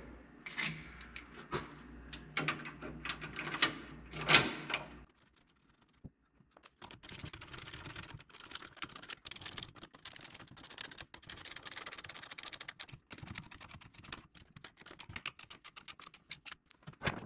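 Sharp metallic clicks and knocks from hand work on a Chevy 12-bolt rear differential, over a low hum that stops abruptly about five seconds in. A long run of quick, light metallic ticking follows.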